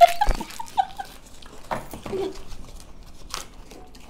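Chocolate wrappers crinkling and tearing as they are unwrapped, in scattered crackles, after a few short giggles in the first second.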